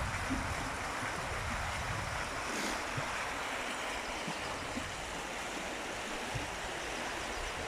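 Steady rushing of a river in spate, the swollen River Tame running high.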